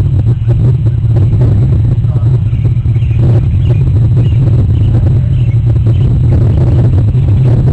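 Loud, steady low rumble of wind buffeting an outdoor webcam's microphone.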